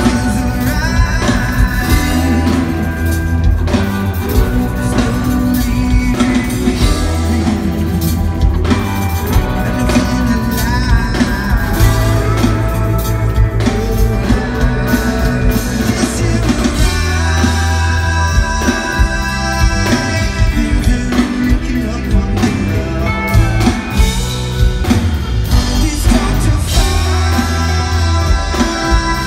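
Rock band playing live: electric guitars, bass, drum kit and keyboard, with a sung lead vocal, heard from the crowd.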